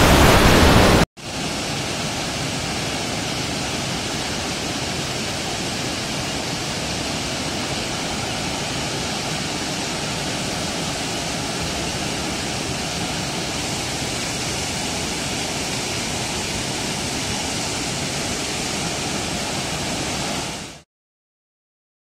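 Waterfall pouring over rocks, a steady even rush of water. It stops abruptly about a second before the end.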